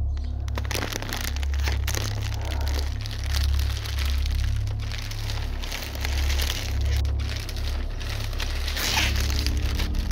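Plastic shopping bag crinkling and crumpling continuously as it is handled, starting about half a second in, over a low, pulsing music drone.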